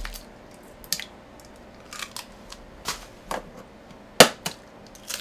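Eggs being cracked against the rim of a stainless steel mixing bowl: a series of sharp taps and cracks of shell, about one a second, the loudest about four seconds in.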